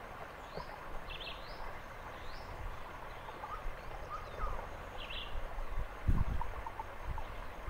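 Short, high rising bird chirps about once a second over a steady forest background hiss, with softer lower chirps in the middle. A low rumble of wind on the microphone comes about six seconds in.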